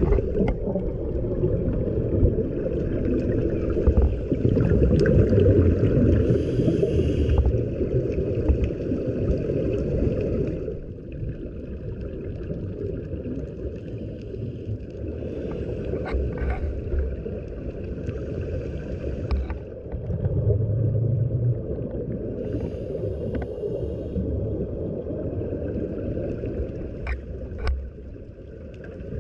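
Underwater sound of scuba breathing through a regulator, heard muffled through the camera housing: a steady low bubbling rumble of exhaust bubbles, louder in the first third, with a short hiss of inhalation twice, about sixteen seconds apart.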